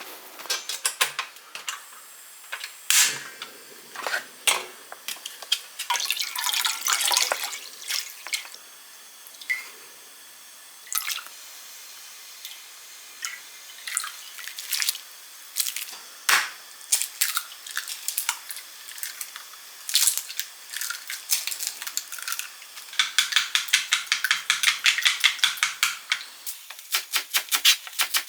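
Irregular sharp clicks and knocks, like objects being handled and set down, with a quick run of rapid tapping a few seconds before the end.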